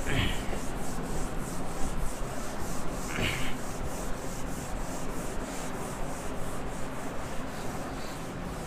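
Whiteboard duster rubbing back and forth across a whiteboard, wiping off marker writing in quick, regular strokes, with a brief squeak at the start and another about three seconds in.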